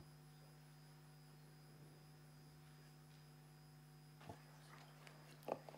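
Near silence: room tone with a steady low hum and a few faint clicks near the end.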